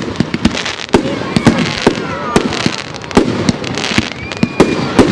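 Aerial firework shells bursting overhead: a rapid, irregular run of sharp bangs, several a second, over a continuous crackle.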